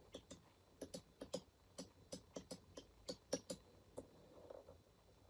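Lego toy xylophone tapped with small Lego mallets: quick, light plastic clicks of the mallet heads on the plastic tile bars, about four a second, stopping about four seconds in.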